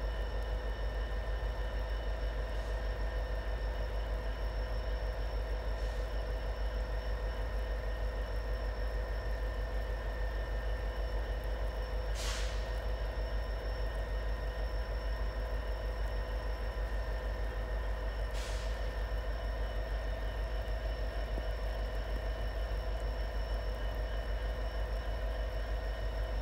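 Diesel freight train moving slowly: a steady low rumble with several steady whining tones over it. Twice, about six seconds apart near the middle, there is a short hiss of air, typical of the train's air brakes.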